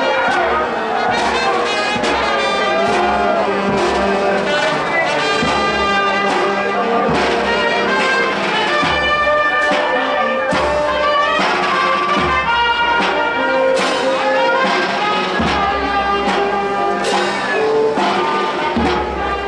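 Brass band playing, trumpets and trombones carrying the tune over a steady beat.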